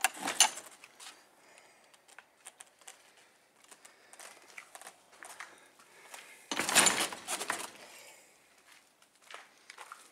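Rustling and scattered clicks of something being handled. A louder rustle comes right at the start, and a longer one about six and a half seconds in.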